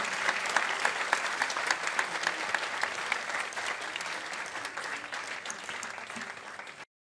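Audience clapping, slowly fading and then cutting off suddenly near the end.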